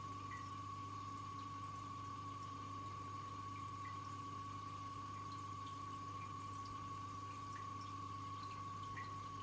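Aquarium running: a steady hum with a high, constant tone, over faint scattered drips and trickling of water.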